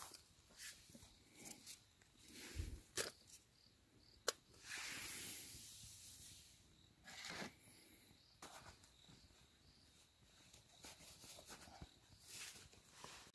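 Quiet handling and rustling of camp gear, with scattered light clicks, a sharp click about four seconds in and then a short hiss, over a faint steady high tone.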